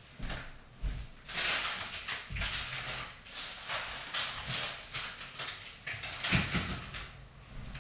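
Irregular rustling and crackling handling noise, a few bursts a second, from about a second in until near the end.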